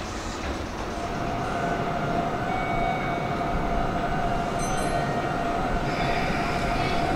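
Meitetsu electric train running through the station: a steady rumble with a flat, high whine that comes in about a second in and holds.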